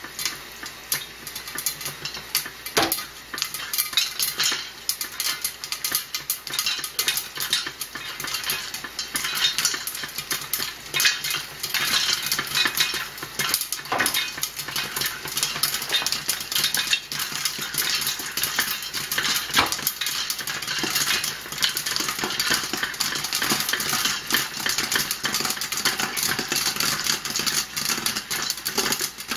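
Popcorn kernels popping inside a lidded pot of hot oil on the stove, with the metal pot and lid rattling as it is shaken. The pops thicken after about ten seconds into a rapid stream of pops.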